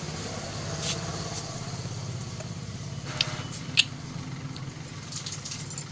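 Steady low mechanical hum with a fast, even pulse, with a few short sharp clicks about a second in and twice between three and four seconds in.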